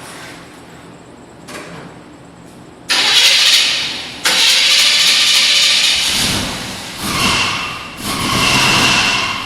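A vehicle engine being cranked by its starter, catching about six seconds in, then revved twice.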